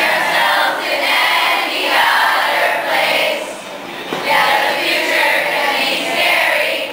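A large group of girls singing together in unison from lyric sheets, in loud phrases with a short break about four seconds in.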